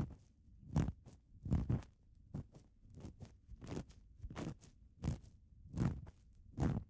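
Close-up ASMR ear cleaning: an ear pick scraping and rustling at the ear in repeated short strokes, about a dozen of them, a little under a second apart and of varying strength.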